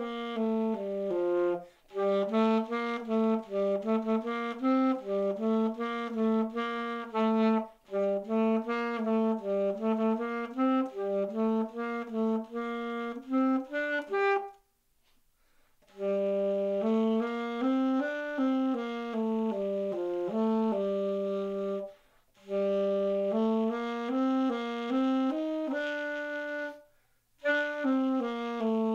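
Solo alto saxophone playing a fast melodic line of quick notes, broken by short breathing pauses, with a longer pause about halfway through.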